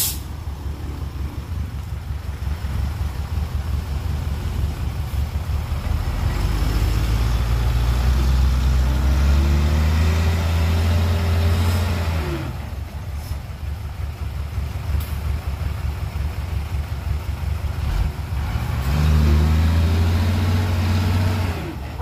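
Dump truck's diesel engine running, revved up twice for several seconds each time while the hydraulic hoist raises the tipper bed to dump its load of soil.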